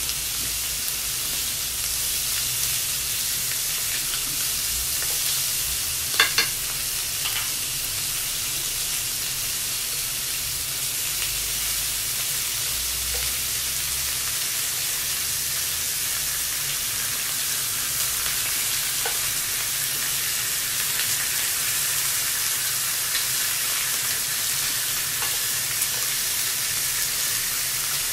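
Meat sizzling on a tabletop yakiniku grill, a steady frying hiss. A couple of sharp clicks come about six seconds in, with a few lighter ticks later.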